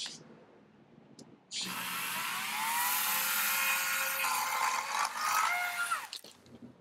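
Wild Badger 16-inch 40 V cordless electric chainsaw starting about a second and a half in. Its motor whine rises as the chain cuts through a branch for about four and a half seconds, then winds down and stops.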